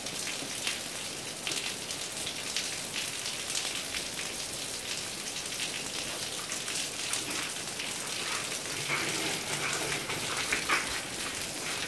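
Heavy rain pouring onto a paved driveway and lawn, heard through an open garage door: a steady hiss with many close drops ticking.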